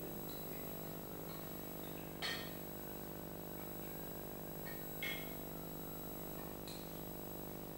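Cutlery clinking against plates and dishes while people eat: two sharp, ringing clinks about two and five seconds in, and a fainter one near the end, over a steady low hum.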